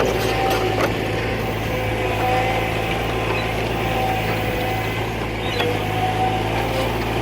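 Engine of a working farm machine running steadily, a constant low hum with no change in speed.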